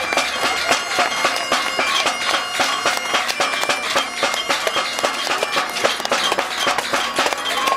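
Highland bagpipes playing a tune over a steady drone, with many sharp taps throughout.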